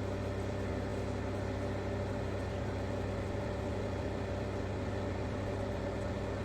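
Steady low mechanical hum with several constant tones under it, unchanging throughout.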